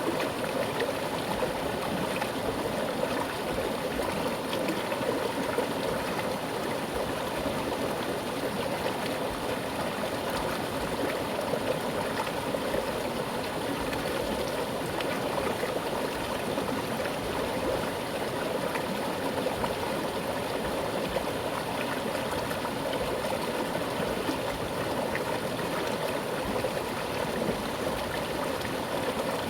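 Mountain stream flowing with a strong current, a steady rushing and gurgling of water over rocks.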